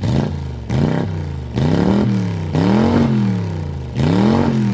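Car engine being revved over and over, about five times, the pitch climbing and falling back with each blip of the throttle.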